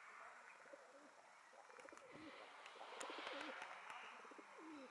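Feral pigeons cooing faintly: a run of low, gliding coos, mostly in the second half.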